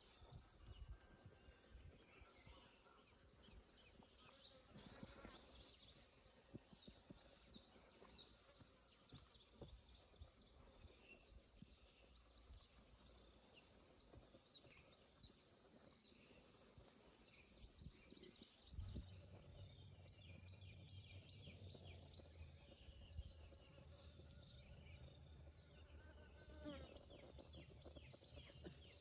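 Faint countryside ambience: a steady high insect drone with repeated clusters of short chirps. A low rumble comes in about two-thirds of the way through.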